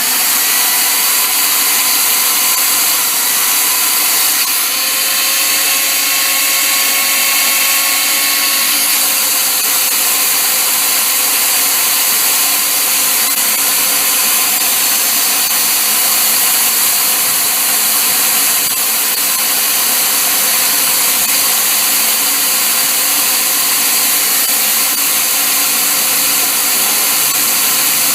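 Power drill running steadily under load, the bit cutting into the snapped steel stud, with a faint whine over the grinding noise.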